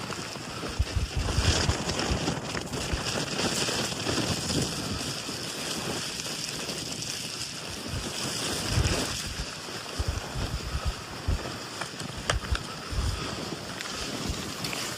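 Strong storm wind rushing steadily, with gusts buffeting the microphone in irregular low thumps.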